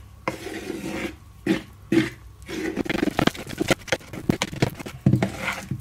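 Spoon stirring a thick rye flour and water mix in a plastic bowl, mixing a rye sourdough starter: rapid, irregular scrapes and clicks against the bowl.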